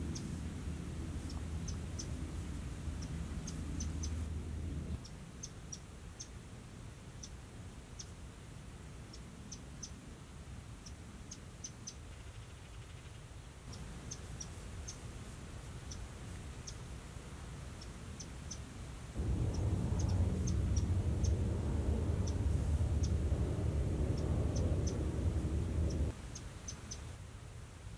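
Outdoor ambience: short, faint, high-pitched chirps repeating irregularly throughout, over a low rumble. The rumble fades after about five seconds and comes back louder for several seconds near the end, where it is the loudest sound.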